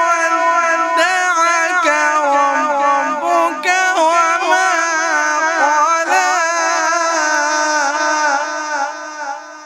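A man's voice in melodic Quran recitation (tajweed), drawing out a long phrase in held, wavering notes heavily ornamented with turns of pitch, tapering away near the end.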